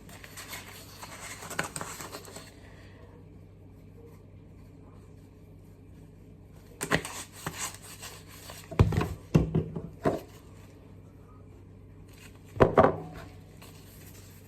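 Kitchen handling noise: a crinkly rustle for the first couple of seconds, then a quiet stretch, then clusters of knocks and clatters about seven to ten seconds in and again near the end.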